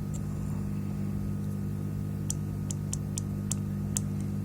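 Steady low hum with light, sharp clicks about two to four seconds in, several in quick succession: multimeter probe tips tapping on the power supply's circuit board while readings are taken.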